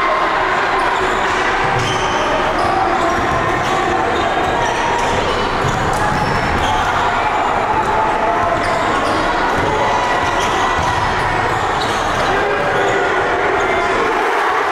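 Basketball dribbling on a hardwood gym floor over steady crowd noise.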